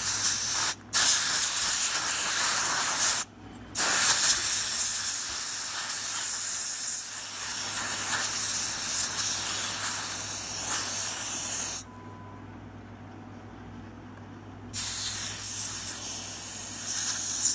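Can of compressed air spraying in long hissing blasts, broken by a short gap about a second in, another around three and a half seconds, and a pause of about three seconds past the middle. It is blowing a water-damaged iPhone 5C logic board dry.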